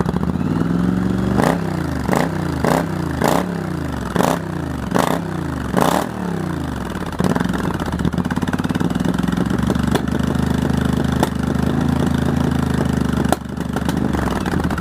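Yamaha XV1100 Virago's air-cooled V-twin, fitted with homemade exhaust baffles, blipped about seven times in quick succession, each rev rising and falling back, then settling to a steady idle.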